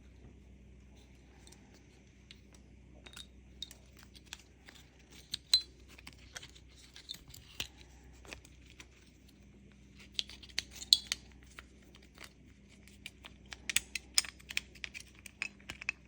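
Opel Insignia key fob parts being handled: irregular small clicks, taps and rattles of hard plastic and metal, in loose clusters, with the sharpest clicks about five and eleven seconds in. A faint steady hum runs underneath.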